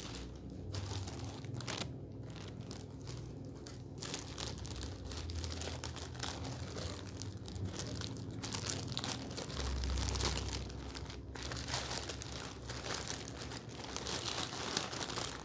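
Packaging crinkling and tearing as a parcel is unwrapped by hand, with irregular crackles throughout and a few dull handling thuds.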